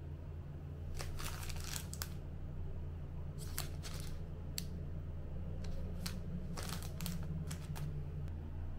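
Short rustles and clicks of small objects being handled, in irregular bursts, over a steady low hum.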